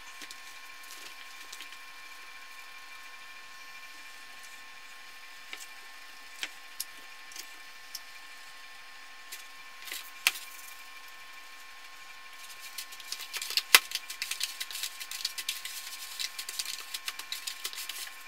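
Hands breading a chicken breast: a few scattered taps and clicks, then from about two-thirds of the way in a dense dry crackling and rustling as the egg-dipped chicken is pressed into breadcrumbs in a plastic container. A faint steady whine runs underneath.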